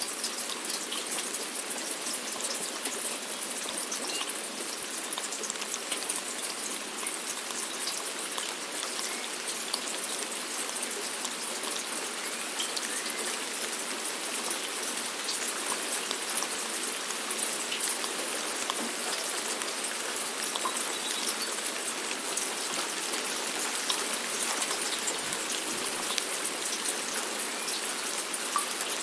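Steady rain falling, a continuous hiss with many small drop ticks.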